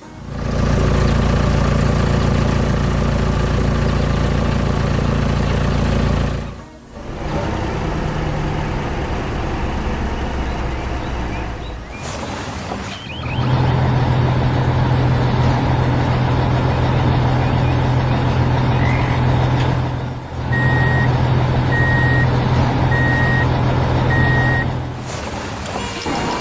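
Heavy construction vehicle engines running in long steady stretches. Near the end a truck's reversing beeper sounds a series of evenly spaced beeps.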